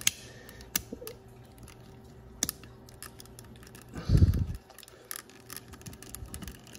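Small clicks and taps of plastic toy parts and a wire paper clip being handled while the clip is fitted into an i-Dog pup's plastic head mechanism, with one louder low thump about four seconds in.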